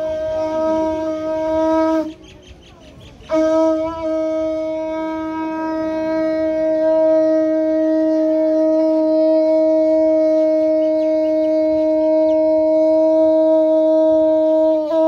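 Large conch shell (shankha) blown in long, steady blasts at one pitch: a blast ends about two seconds in, then after a brief pause a single unbroken blast is held for the remaining twelve seconds.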